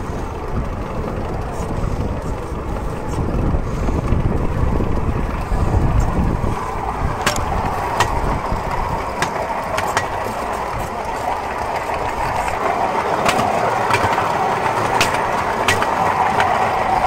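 Pedal-powered rail bike rolling along old railway track, its steel wheels making a steady rumble. Wind buffets the microphone in the first half. In the second half there is a scattering of sharp clicks, roughly one a second.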